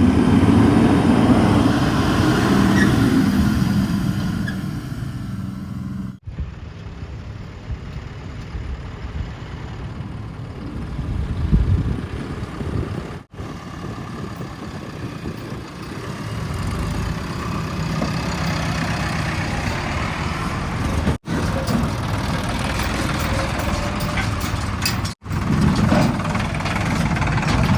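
Heavy diesel engines of construction vehicles running, loudest in the first few seconds and again near the end, with the sound breaking off abruptly a few times at cuts.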